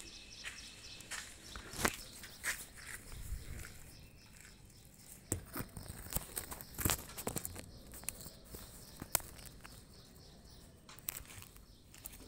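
Camera handling, then footsteps in rubber flip-flops on a wet concrete slab: scattered light clicks and knocks at uneven intervals.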